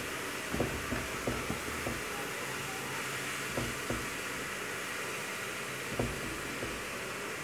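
A spatula scraping and knocking against a large aluminium pot while stirring a frying vegetable-and-egg rice mixture. The knocks come irregularly, over a steady hiss.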